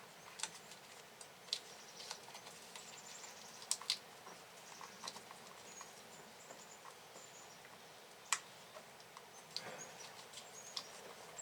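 Sporadic light clicks and taps, the sharpest two just before 4 seconds in and one a little past 8 seconds, with a few faint, short high chirps now and then.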